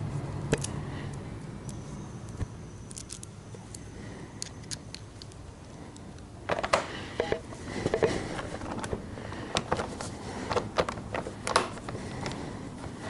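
Small metal parts and hand tools clinking and clicking during motorcycle assembly work. The sharp clicks come in a dense cluster from about halfway through. A low hum fades out near the start.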